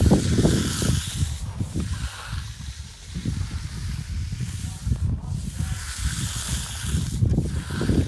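Long-handled stick trowel swishing over wet concrete in long strokes, a hiss that comes and goes every couple of seconds, over wind rumbling on the microphone.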